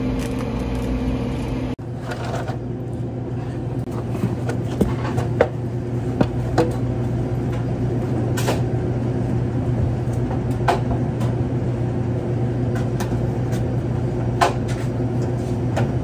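A steady low machine hum with scattered knocks and clunks from a person climbing a stepladder and handling cardboard boxes.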